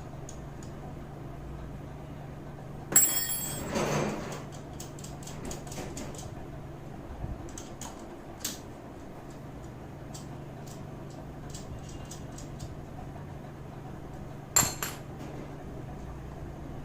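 Metal tools clanking and clinking while a clutch-holding tool and its bolts are set onto a motorcycle clutch basket: a sharp, ringing clank about three seconds in and another near the end, with light metal clicks between.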